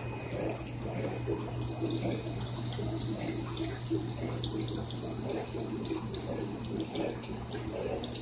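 Aquarium filtration running: water splashing and running into the tank over a steady low pump hum.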